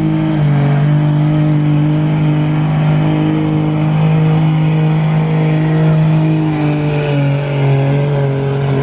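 Second-generation Dodge Ram's Cummins diesel straight-six at full throttle under heavy load, dragging a pulling sled. It gives a steady, loud high-rpm drone held at nearly constant pitch, dipping briefly about seven seconds in.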